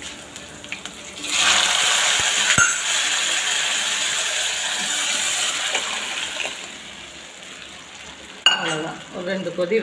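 Sambar poured into a kadai of hot tempering oil, hissing loudly as it hits the oil about a second in, with one metal clink, then dying away over several seconds.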